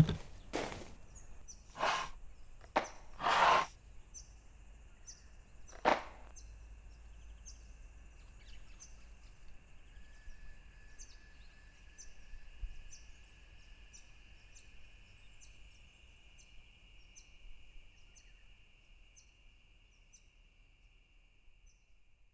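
Several sharp swishes or knocks in the first few seconds, the loudest near the start and about three and a half seconds in. Then a faint steady high tone with soft, even ticks about twice a second, fading away near the end.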